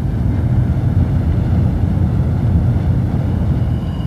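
Boiler gas burner firing: a steady low rumble.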